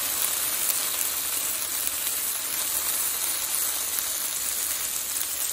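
Sliced potatoes and green peppers sizzling in hot olive oil in a skillet: a steady crackling hiss.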